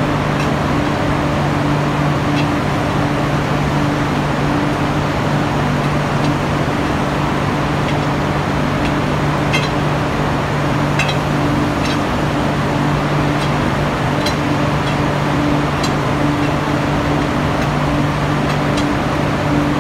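Steady industrial din of steel-plant machinery: a constant low hum and a higher hum that comes and goes, under an even rush of noise. Light clinks sound here and there through the middle as workers handle tools at a ladle's slide gate.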